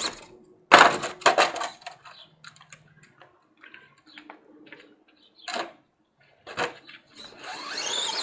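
RC truck landing hard off a plywood jump about a second in, a loud crash with clattering, then scattered knocks and rattles as it drives over the dirt, two sharper knocks later on, and its motor whining up again near the end.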